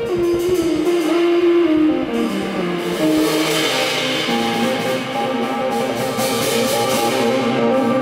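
Live band playing a blues number, led by electric guitar over bass and drums: one note held for about two seconds, then steady chords.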